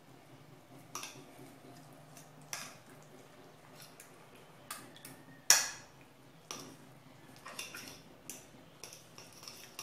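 Fork clinking and scraping against a plate while beating an egg and tapioca batter with chopped ham and mozzarella: irregular taps, the sharpest about five and a half seconds in.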